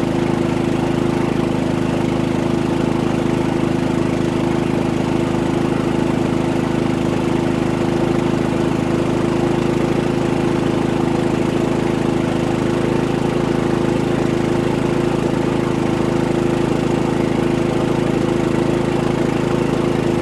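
Harbor Freight Predator 3500 inverter generator's single-cylinder engine running steadily under a load of about 13 to 14 amps, around half its capacity, powering an RV air conditioner.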